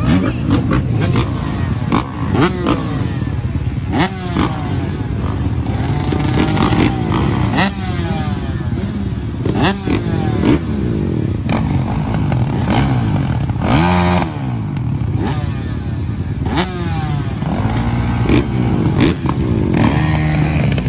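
Several motocross dirt bikes riding, their engines revving up and down through the gears and overlapping one another. Short knocks and clatter run through it.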